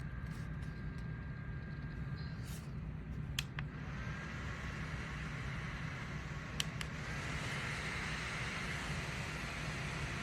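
Portable neck fan's small motor whirring: a click about three and a half seconds in and the whir starts, then another click and it runs faster and louder, over a steady low hum.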